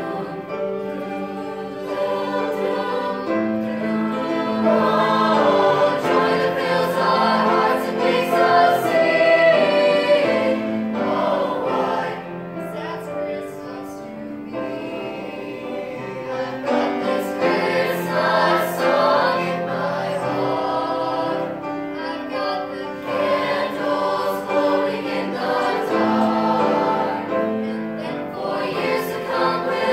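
Girls' choir singing, with long sustained notes that swell, ease off for a few seconds around the middle, then build again.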